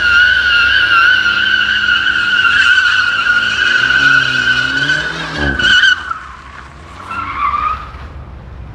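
Car tyres squealing in one long steady screech for about six seconds as the car slides in a drift, with the engine revving underneath. The screech cuts off, and a second, shorter squeal follows about a second later.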